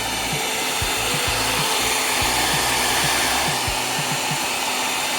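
Small hair dryer blowing steadily, warming adhesive tape so it gets sticky in cold weather.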